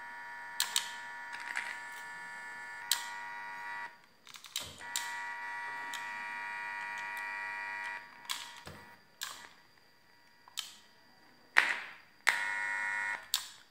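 Oval TV speakers driven by a salvaged 12 V TV amplifier board, buzzing steadily while wires are soldered to its music input pins, as is typical of hum picked up on an open amplifier input. The buzz runs for about four seconds, stops, comes back for about three more, then returns briefly near the end, each time starting and stopping with sharp clicks.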